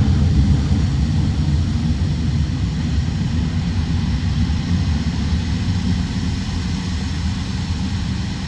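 Jet engines of an Il-76 military transport heard from the ground as it flies away: a steady low rumble that slowly fades.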